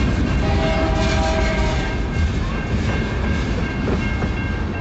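CN freight train's tank cars rolling past at close range: a steady low rumble of steel wheels on the rails, with a steady high ringing over it.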